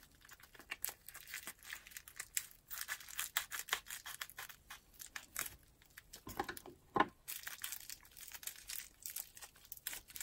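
Clear plastic packaging crinkling and tearing as it is unwrapped by hand, a run of short sharp crackles with a few fuller rustles about two thirds of the way in.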